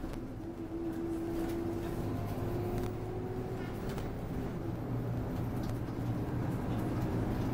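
Interior noise of an Alexander Dennis Enviro200 MMC single-deck bus under way: a steady low hum from the engine and drivetrain with road noise, and a faint whine over the first few seconds.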